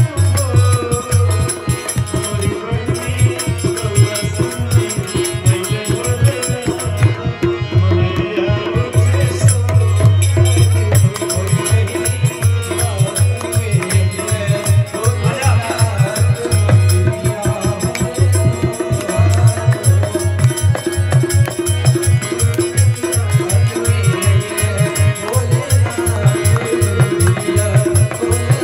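Instrumental devotional folk music: a harmonium plays the melody over a steady hand-drum rhythm, with jingling percussion on top.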